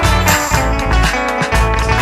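Indie pop-rock song playing, an instrumental passage led by electric guitar over bass and a steady drum beat.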